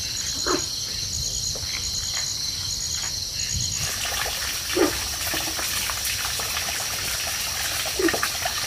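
Steady chirring of insects with a faint pulsing chirp over it, joined about four seconds in by trickling water. A few short, sudden sounds break in, about half a second, five and eight seconds in.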